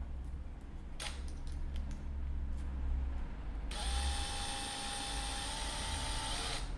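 A small handheld power tool runs steadily for about three seconds, starting a little past halfway, after a few light clicks and taps of handling parts.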